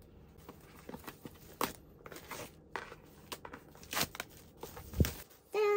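Clear plastic shrink-wrap crackling and crinkling as it is pulled off a cardboard box, with light handling clicks and a thump about five seconds in.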